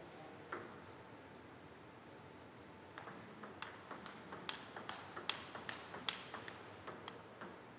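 Table tennis ball clicking sharply off the rackets and table in a rally: a single click about half a second in, then from about three seconds in a quick run of clicks, several a second, that stops shortly before the end.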